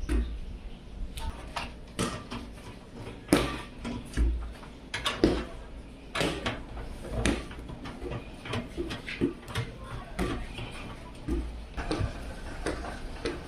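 PC case and components being handled and fitted: irregular clicks, knocks and short scrapes of hard plastic and metal parts, several sharper knocks among them.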